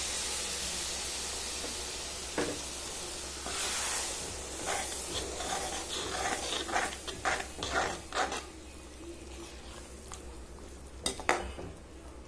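Tamarind water sizzling as it is poured into a hot kadai of fried garlic-onion masala. A metal ladle then stirs and scrapes against the pan in a quick run of short scrapes and knocks, with two sharp clinks near the end.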